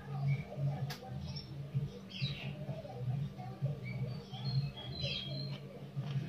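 Small birds chirping in short, high, scattered calls over a low, pulsing background drone.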